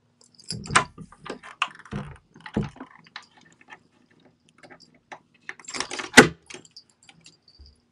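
A cat rattling and clicking a metal lever door handle fitted with a plastic guard, knocking it against the door in irregular bursts. The loudest knocks come about a second in and again about six seconds in.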